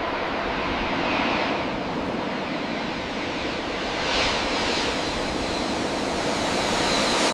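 Jet airliner engine noise: a steady rushing sound that swells briefly about four seconds in.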